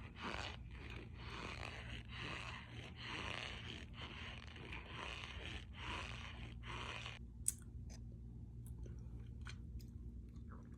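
Powdered starch being compressed, giving a squeaky crunch repeated about twice a second; the crunching stops about seven seconds in, leaving a few faint clicks.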